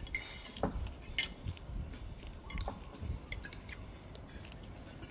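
Cutlery and dishes clinking at a meal: scattered light clinks and taps, with a few dull low knocks.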